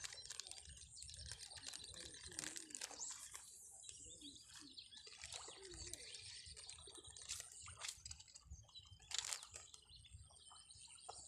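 Faint bird chirping, with a few scattered clicks.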